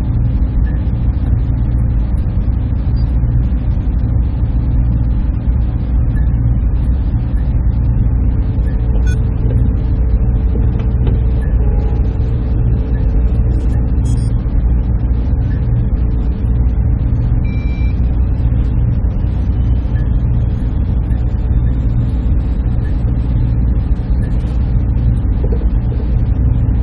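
Server room machinery running with a steady low drone, with a few faint short tones and ticks over it.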